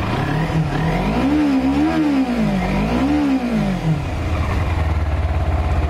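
2010 Kawasaki Ninja 250's 249cc liquid-cooled, carbureted parallel-twin engine idling, then revved up and down three times in quick succession about a second in, before settling back to a steady idle.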